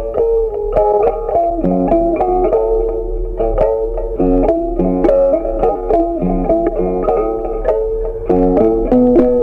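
Background music: a melody picked note by note on a plucked string instrument.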